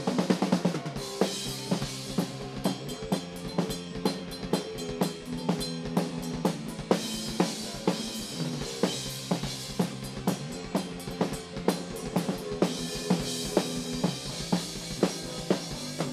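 Rock band playing an instrumental passage with no vocals, the drum kit's kick and snare beating out a steady rhythm over sustained guitar and bass.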